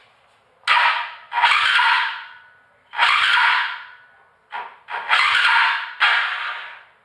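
Electric starter of a 2003 KTM 640 Adventure's single-cylinder engine cranking in about six short bursts of roughly a second each. The engine turns over poorly and does not fire.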